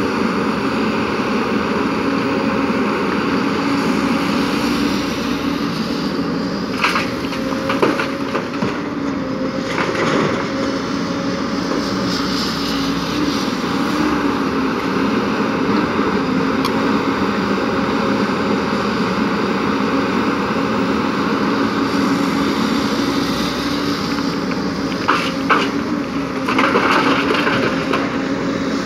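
JCB crawler excavator's diesel engine running steadily under working load, with a constant droning hum. Sharp clanks of the steel bucket and rock come a few times, about seven and ten seconds in, and there is a louder spell of clattering stone near the end.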